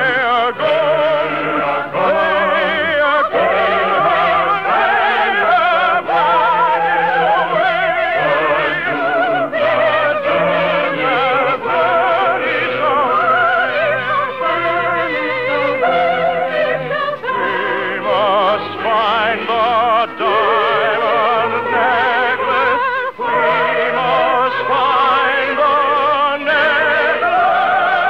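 Operatic singing with strong vibrato over orchestral accompaniment, from a 1952 radio broadcast recording.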